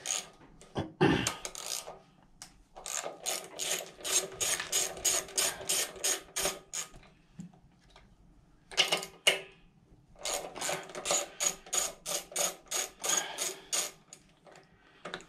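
Socket ratchet with a 10 mm socket clicking in runs of about four clicks a second as it undoes the bolts on a lawnmower engine's air filter housing, with a couple of louder knocks in between.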